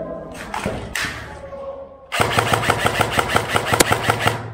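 Airsoft electric rifle firing a long full-auto burst of about two seconds, starting about two seconds in: rapid clacking shots over the whine of the gun's motor and gearbox, stopping abruptly. A few single sharp clicks come before it.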